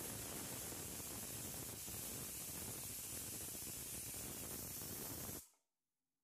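Faint steady hiss with no distinct events, cutting off abruptly to dead silence about five seconds in.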